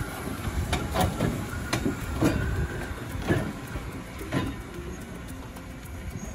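Oigawa Railway E34, an ex-Seibu E31-class electric locomotive, rolling slowly over yard track with a low rumble. Its wheels give sharp clacks over rail joints and points about once a second, which grow fainter near the end as it moves away.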